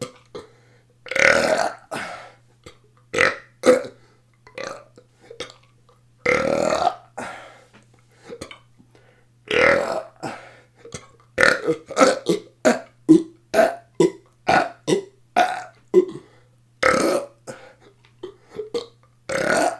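A person belching deliberately over and over: a string of short burps with a few longer ones of about a second, and a quick run of short burps about two a second in the second half.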